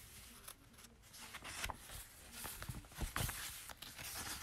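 Faint rustling and a few soft taps in a quiet small room, the clearest taps about one and a half and three seconds in.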